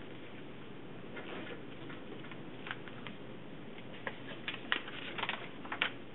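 A sheet of white paper being folded, then opened out and smoothed flat, giving sharp crinkles and crackles that cluster about four to six seconds in, over a steady background hiss.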